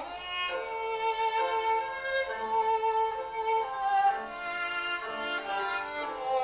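Background music: a slow melody on a bowed string instrument, long held notes moving from pitch to pitch.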